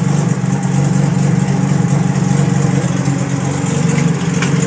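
Freshly rebuilt Mazda 13B rotary engine of a 1993 RX-7 running at a steady idle during its first run after the rebuild.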